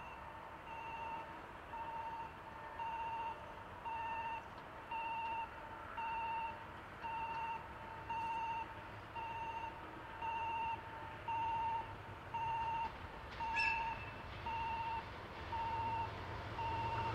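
Electronic trackside warning alarm beeping about once a second, steadily, as a DF200 diesel locomotive hauling a container freight train approaches; the locomotive's low rumble grows in the last few seconds.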